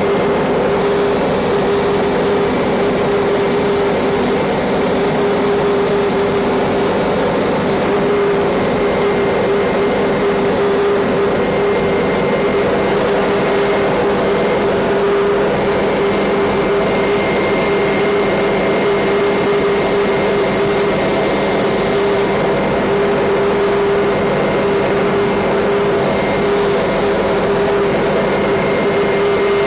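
Helicopter engine and rotor noise heard from inside the cabin: a loud, steady drone with a constant high whine over it.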